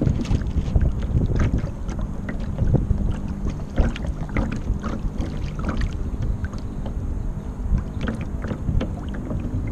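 Water splashing and slapping against the hull of a Kyosho Seawind RC sailboat under sail, heard close up from its deck, with a steady rumble of wind on the microphone.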